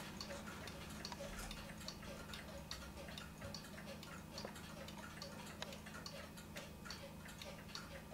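Paico owl novelty wall clock's weight-driven pendulum movement ticking quickly and evenly, faint, over a low steady hum.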